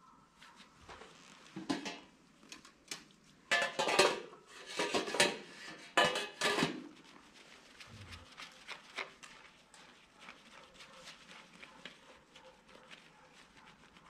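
Metal surgical instruments clinking and being handled during a horse castration: a run of sharp clicks and rustles, loudest in three short bursts between about 3.5 and 7 seconds in, then fainter scattered ticks.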